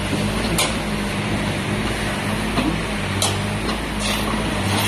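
Mini excavator engine running steadily while digging, with a few short sharp knocks and scrapes.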